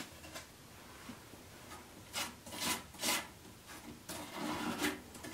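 Spatula knife scraping and smearing thick stencil compound over a plastic checker stencil laid on a plywood drawer front, in a run of short strokes that begins about two seconds in and comes faster near the end.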